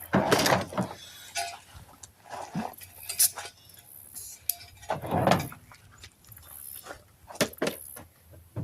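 Irregular clinks and knocks of metal tools and equipment being handled. Two louder short rushing noises, one at the start and one about five seconds in, stand out.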